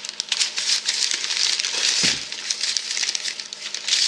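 Crinkling and rustling of packaging, irregular and continuous, as brake conversion parts are unwrapped from their box.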